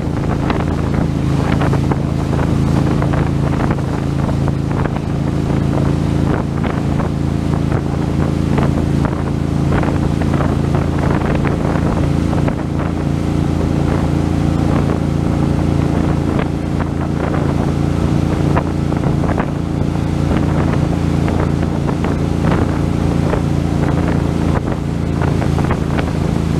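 Wake boat's inboard engine running steadily under way, a constant low drone, with the wake churning and splashing close behind the stern and wind buffeting the microphone.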